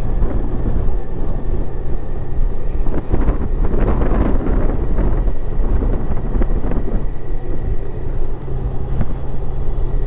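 Motorcycle running with a steady low engine rumble while being ridden.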